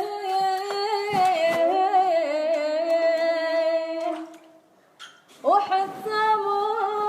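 A woman's voice singing an unaccompanied melody in long held, wavering notes. It breaks off for about a second past the middle, then starts again.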